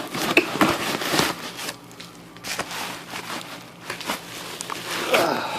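Packaging rustling and crinkling in irregular bursts as a bubble-wrapped item is pulled out of a shipping box.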